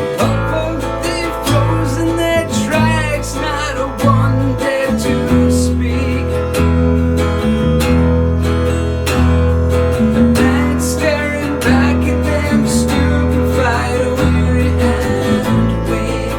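Pirate-rock band playing a mostly instrumental passage: strummed acoustic guitar over a bass line that changes note every second or two, with a wavering lead melody above.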